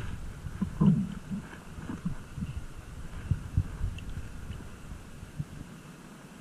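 Irregular low thumps and knocks that fade over the last couple of seconds: handling noise and water bumping a camera held at the water's surface.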